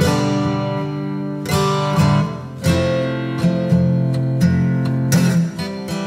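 Background music: acoustic guitar strumming chords.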